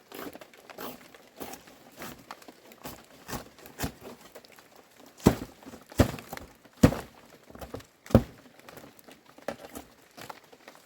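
Crinkling and rustling of material being handled, with four hard knocks about halfway through, the first three about three-quarters of a second apart.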